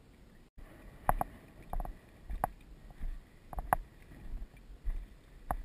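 Footsteps of a person walking through dry marsh grass, at walking pace: short knocks and rustles about every two-thirds of a second, with the jostling of a body-worn camera.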